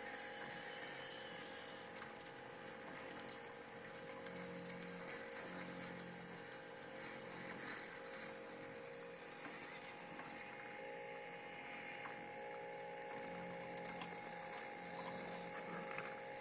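Steady whine of the small electric motors and gearing of scale-model construction machines: a rotating trommel screen and conveyor. A lower hum comes and goes several times, and sand and grit tick lightly as it pours through the drum.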